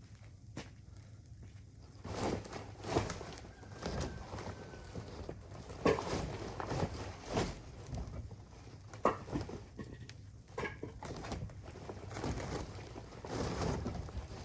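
A series of irregular knocks and clunks with rustling between them, starting about two seconds in.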